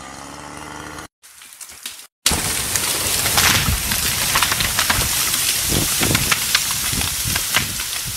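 A chainsaw running briefly at idle, then a felled conifer crashing down through the forest: a loud, sustained crackling of breaking branches and twigs, peppered with sharp snaps, starting about two seconds in.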